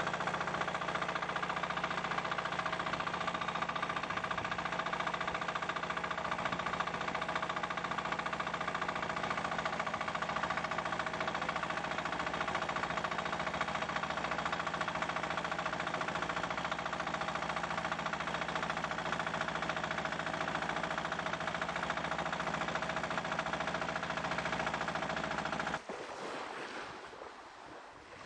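A small boat's engine running steadily under way. About two seconds before the end it cuts off abruptly to soft waves and breeze on a beach.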